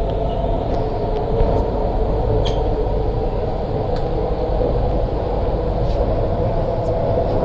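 Steady running noise heard from inside a CRRC Qingdao Sifang-built MTR Island Line Q-Train car in motion: an even low rumble of wheels and motors, with a few faint clicks.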